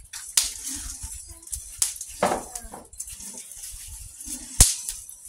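Metal spoon stirring squash seeds and maize kernels toasting on a metal comal, with a faint rattle of the dry seeds and sharp clicks of the spoon striking the comal, the loudest about four and a half seconds in.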